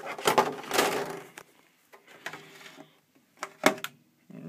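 Plastic monster-truck body being pulled off the chassis of a Savage MGT 8.0 nitro truck: a scraping rustle for about a second and a half, then a few sharp clicks and a loud knock near the end.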